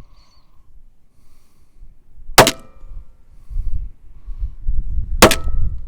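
Two shots from a Hi-Point .45 ACP pistol, about three seconds apart, each followed by a brief ring. Wind rumbles on the microphone between them.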